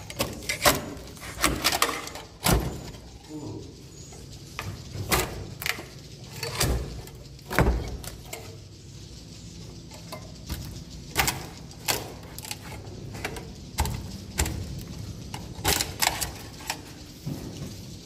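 A metal scraper blade on a long pole prying swiftlet nests off wooden ceiling joists, making irregular scrapes and sharp knocks scattered throughout, some louder than others.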